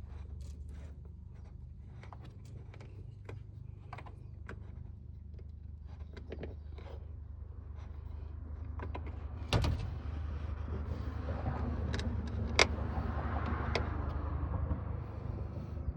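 Small clicks, taps and rubbing as a greased valve is handled and worked into an inflatable boat's valve seat. There is a knock about ten seconds in and a sharp click a few seconds later, with a stretch of scraping rub near the end, all over a steady low hum.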